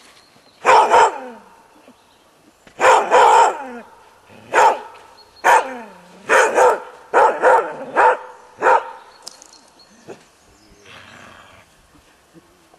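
A collie barking loudly in about eight barks and short runs of barks over some eight seconds, then falling quiet.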